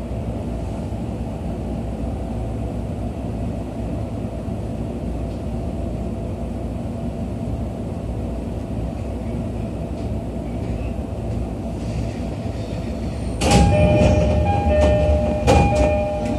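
Inside a JR East E231-series commuter car: a steady low hum, then about thirteen and a half seconds in the doors slide open with a thud and the two-tone door chime repeats, high then low.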